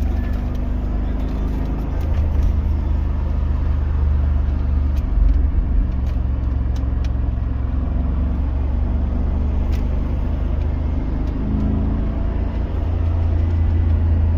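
Mercedes-AMG G63's twin-turbo V8 running through its stock exhaust, a steady low rumble whose pitch steps slightly a few times rather than rising in a rev.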